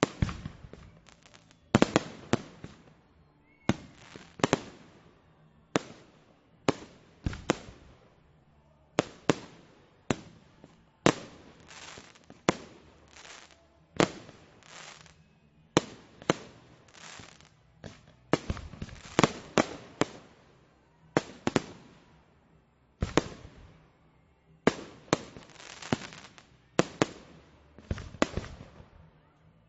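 Fireworks exploding in a long, irregular string of sharp bangs, several in quick succession, then a brief pause, then more. Each bang trails off in a short echo.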